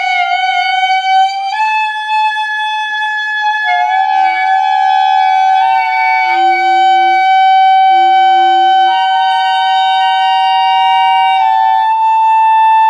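Clarinet played loud on long held high notes that step to a new pitch every second or two, at times with two close tones sounding together. About four to eight seconds in, three short lower tones sound beneath it.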